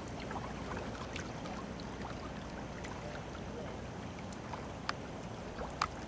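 Steady low rumble of distant construction equipment working on a river barge, with a few faint sharp clanks, the loudest two near the end.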